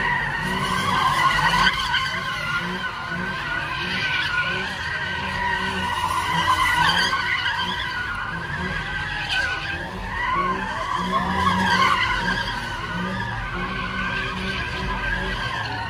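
A car spinning donuts: its tyres squeal without a break in a wavering pitch over its engine running hard.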